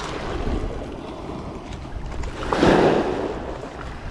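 Waves washing onto a pebbly shore, with wind on the microphone. One louder surge of wash comes about two and a half seconds in and lasts about half a second.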